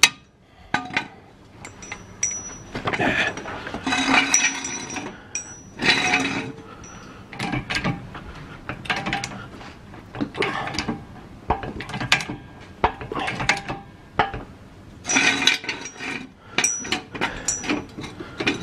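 Irregular metal clinks, knocks and scraping as a steel axle stand is shuffled into place under a jacked-up car, with a brief metallic ring now and then.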